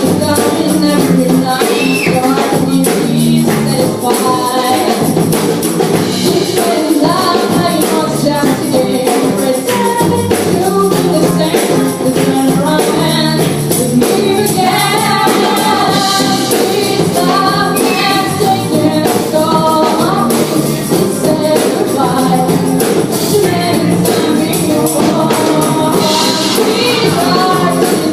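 Live band playing a song with a singer, over a steady beat of percussion.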